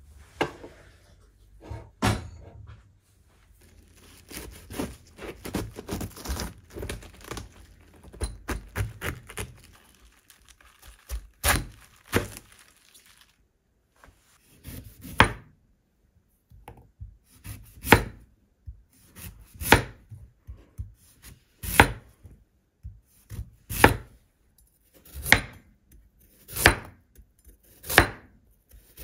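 Kitchen knife slicing a cabbage and then carrots on a wooden cutting board. Each single, unhurried cut ends in a sharp knock of the blade on the board, coming about every one and a half to two seconds through the second half. The first dozen seconds hold softer, irregular rustling and light knocks.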